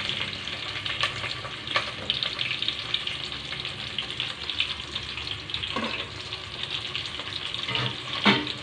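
Chopped vegetables sizzling steadily in hot ghee and oil in an aluminium pot, with a few light clicks and a sharper knock near the end.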